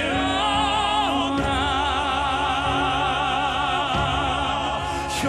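Male crossover vocal quartet singing in harmony with operatic vibrato, holding long notes over instrumental accompaniment.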